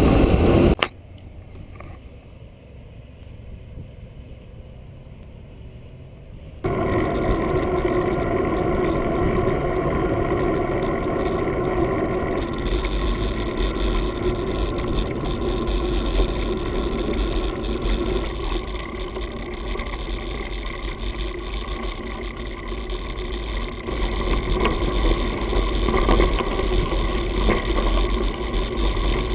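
Mountain-bike ride noise picked up by a bike- or helmet-mounted action camera: a steady muffled rumble of tyres and wind. It is quieter for the first few seconds, gets louder from about seven seconds in, and a deeper rumble joins about halfway through as the bike runs on a dirt track.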